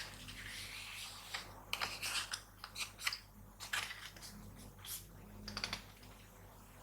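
A sheet of paper being handled and folded: irregular crisp rustles and crackles with sharp creasing clicks, busiest in the middle of the stretch.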